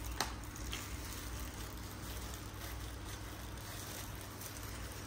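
Soft rustling of banana leaves being wiped with a cloth over a steady low background hum, with a sharp click about a quarter second in.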